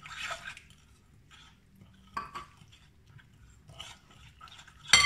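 Metal spoon stirring flour and water in a glass bowl, with soft scattered scraping and tapping, then one sharp clink of the spoon against the glass near the end that rings on briefly.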